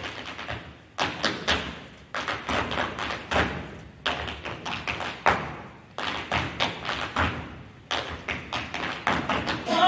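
Dancers' hard-soled shoes striking the stage floor in unison footwork: quick clusters of taps and stamps, a new group about every one to two seconds, each fading away in the hall's echo before the next.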